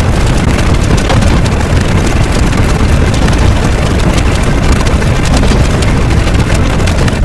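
A loud, steady rumbling noise, heaviest in the low end, with a faint crackle on top.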